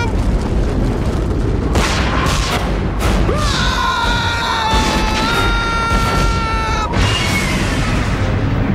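Cartoon explosion sound effects: a continuous low rumble with several crashes of breaking rock about two to three seconds in, over dramatic music. A heavy crash about seven seconds in marks a hard landing.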